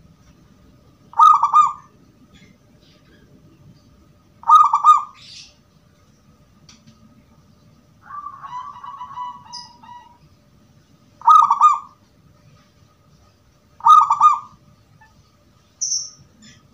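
Zebra dove (perkutut) cooing: four short, rolling coo phrases of about half a second each, spaced a few seconds apart, with a longer, drawn-out call in between near the middle.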